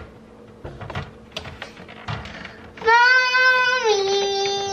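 A young child calls "Mommy" in one long, high, sing-song drawn-out call that starts about three seconds in and steps down in pitch near the end. Before it there are a few light taps and knocks of handling.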